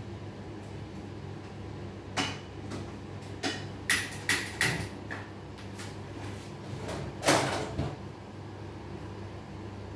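Kitchen clatter: a series of sharp knocks and clinks between about two and eight seconds in, with three quick ringing clinks in a row midway and the loudest knock near the end, over a steady low hum.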